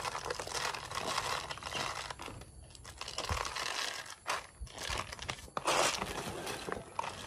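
Dry cat kibble being pushed by hand into plastic bottles: the pellets rattle and the plastic crinkles in uneven bursts with short pauses.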